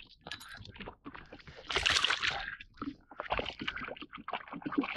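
Water splashing and sloshing at the side of the boat as a northern pike is lowered into the lake and released, loudest about two seconds in.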